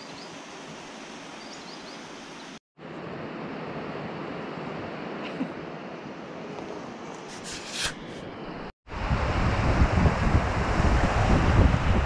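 Steady soft outdoor hiss, broken twice by short dropouts; then, about nine seconds in, a much louder rush of river water with wind rumbling on the microphone as the raft moves down the river.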